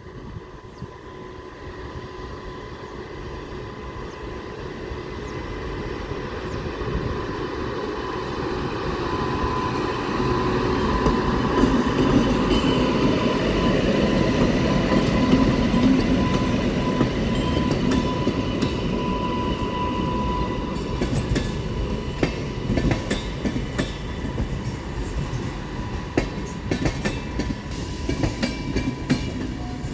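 WAP-7 electric locomotive hauling a passenger express past: a rumble with a steady high whine that grows louder as the locomotive approaches and passes, loudest about halfway through. Then the coaches' wheels clatter on the rails in repeated clicks.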